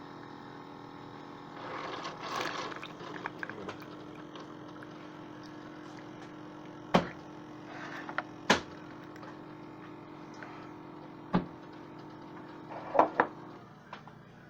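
Coffee maker brewing, with a steady low hum and liquid running. Several sharp clicks and knocks come through it, the loudest pair near the end.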